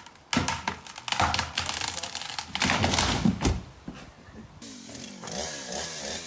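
A rapid series of loud crashes and clattering impacts for about four seconds, then a machine running with its pitch sweeping up and down.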